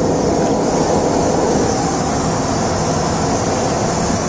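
Steady, loud airliner cabin noise heard inside the plane's lavatory: a constant rush of engine and airflow noise with a high hiss on top.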